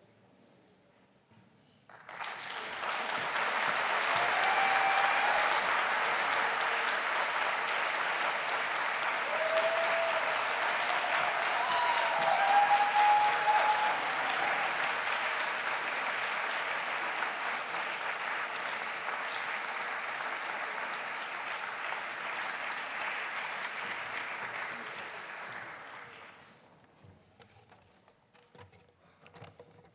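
Audience applauding: the clapping starts about two seconds in, holds steady and fades out near the end.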